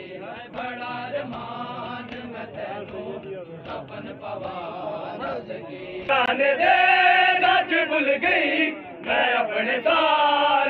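Men's voices chanting a noha, a Shia mourning lament, in a slow sung line. The chanting is quieter at first and grows much louder about six seconds in, dipping briefly about three seconds later.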